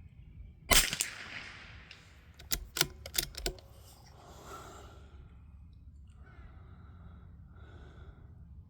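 A single .22 LR shot from a Ruger Precision Rimfire bolt-action rifle about a second in, with a short decaying tail. About two seconds later, a few quick sharp metallic clicks as the bolt is worked to eject the case and chamber the next round.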